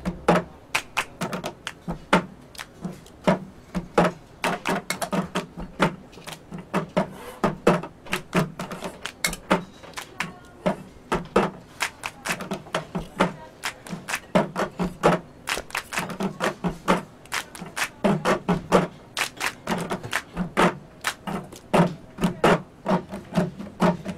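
Cup-game percussion played by many people at once: cups knocked, tapped and slammed on tabletops, mixed with hand claps, in a fast, busy rhythm of clicks and thumps.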